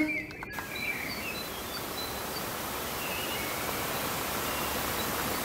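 Steady hiss of background noise, with a few faint, short high chirps scattered through it.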